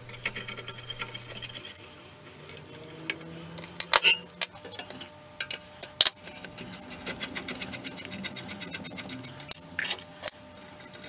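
A screwdriver working the small screws out of a bench grinder's side cover and guard. Scattered sharp metal clicks and light clinks of the tool and screws, the loudest about four, six and ten seconds in.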